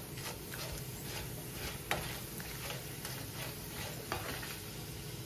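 Corn tortilla squares sizzling as they fry in vegetable oil in a nonstick pan, while a slotted spatula stirs them, tapping and scraping against the pan several times; the sharpest tap comes about two seconds in.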